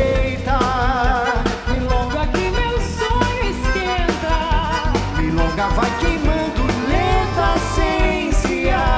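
Live band playing a milonga: a held, wavering melody line over a steady bass beat.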